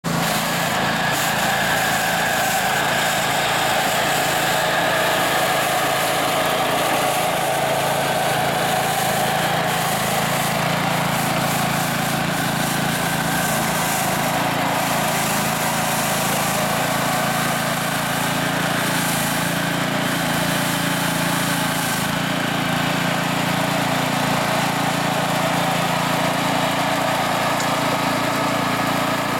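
Texas De Luxe walk-behind two-wheel tractor with a rotary sweeper brush: its small engine running steadily while the spinning brush sweeps the paving.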